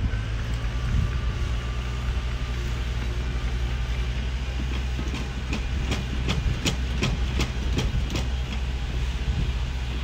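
Bulldozer's diesel engine running steadily. About halfway through comes a run of sharp metal clanks, a few a second, typical of steel crawler tracks.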